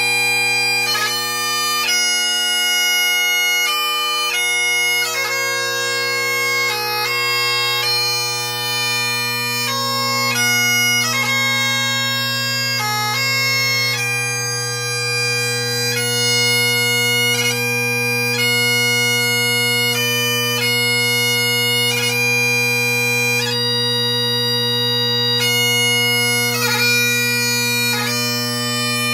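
Great Highland bagpipe playing a slow piobaireachd: a steady drone sounds under the chanter's long held melody notes, which are broken by quick grace-note flourishes between notes.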